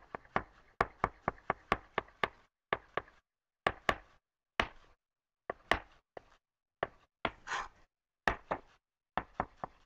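Chef's knife chopping scallions on a wooden cutting board. It starts with a quick run of knocks, then slower scattered strokes with short pauses, and picks up speed again near the end.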